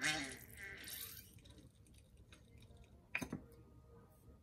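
Acrylic paint squirting and sputtering from an upturned squeeze bottle into a plastic cup, followed about three seconds in by two sharp clicks.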